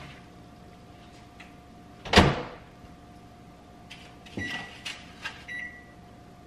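A loud thud of a door or lid shutting about two seconds in, then a lighter knock and two short beeps from a microwave oven's keypad as it is set.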